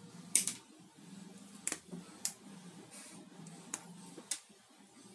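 A run of sharp clicks and light knocks, six or seven over about four seconds, from wire-cutter pliers and a thin two-core power wire being handled on a wooden tabletop. The loudest is a double click about half a second in.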